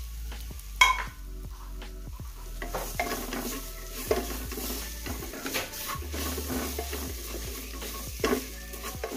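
Wooden spatula stirring and scraping a masala of onions and coriander powder in a pressure cooker while it sizzles in the oil. There is one sharp knock about a second in, and the scraping strokes pick up after about two and a half seconds.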